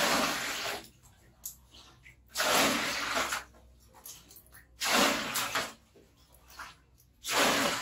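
Water poured from a plastic scoop into a metal basin, four pours each about a second long, a couple of seconds apart.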